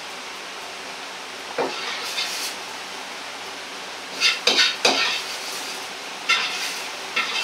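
Metal ladle scraping and knocking against a wok while scooping out stir-fried chicken, a handful of short scrapes and clinks, several bunched together about four to five seconds in, over a steady background hiss.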